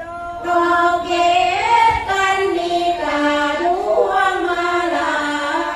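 A woman singing sorapanya, the Isan Thai Buddhist verse chant, in long held notes that slide between pitches.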